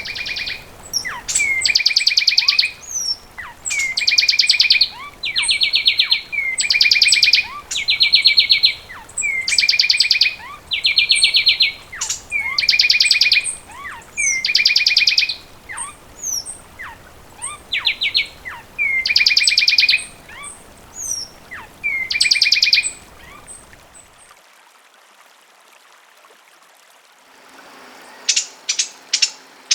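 Fulvous wren singing: a loud run of rapid trills, each about a second long, repeated every couple of seconds with short sharp whistled notes between them. After a pause of a few seconds, a different series of quick, sharp notes begins near the end.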